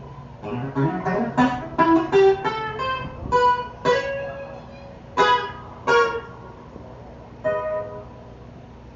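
Guitar played alone: a quick run of plucked single notes, then a few separate notes left to ring.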